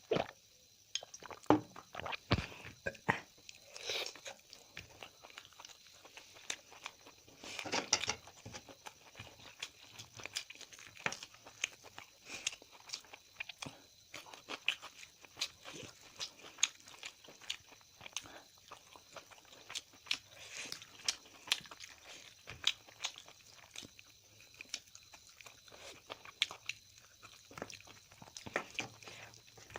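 A person eating close to the microphone: chewing and crunching, with many small irregular clicks and mouth noises, a few louder bites near the start and about eight seconds in.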